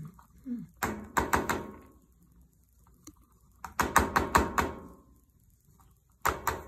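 Three quick runs of sharp knocking taps, about four to six taps in each run, one about a second in, one near the middle and one near the end.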